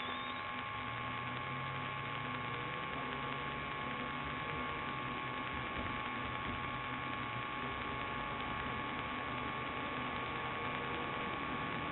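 Steady electrical hum and hiss from a police car's dash-camera audio, with several fixed whining tones. A low drone underneath, the patrol car's engine and road noise, fades about eight seconds in.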